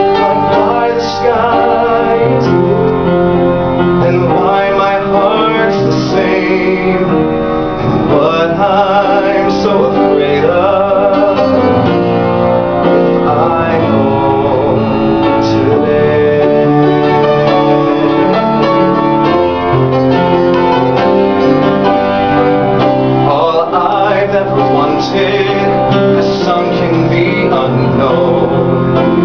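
Upright piano accompanying a man singing a slow musical-theatre ballad, with held notes sung with vibrato.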